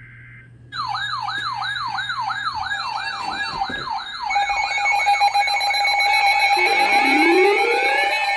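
Warning sirens sounding. A fast warbling sweep starts just under a second in, about four a second. It changes to a steady tone at about four seconds, and slowly rising wails join it near the end.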